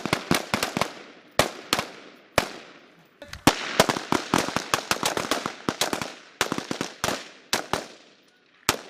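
Several 5.56 mm FAMAS assault rifles firing on a range: a rapid, irregular string of shots, some overlapping, with a brief pause about three seconds in and a last single shot near the end.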